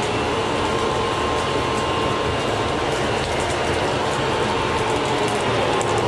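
Steady roar of a homemade forced-air furnace: a blower pushing air through a steel pipe into the fire around the crucible, with a few faint crackles as the fire throws sparks.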